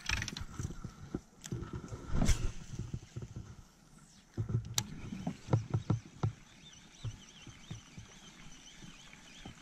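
Handling knocks and thumps from a baitcasting rod and reel being worked in a small wooden boat while a topwater lure is retrieved: a heavy thump about two seconds in, then a quick run of low knocks with a sharp click around the middle.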